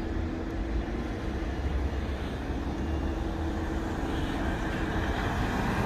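Cars driving over a railroad grade crossing once the gates lift, over a steady low rumble. The tyre and engine noise grows near the end as a car passes close.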